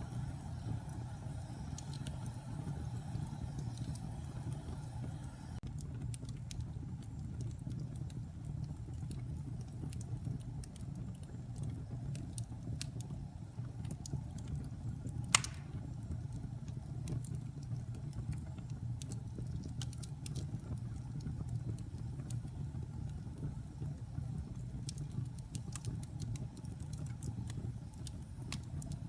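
Wood fire burning in a fireplace: a steady low rumble of flames with scattered small crackles and one sharp, louder pop about halfway through.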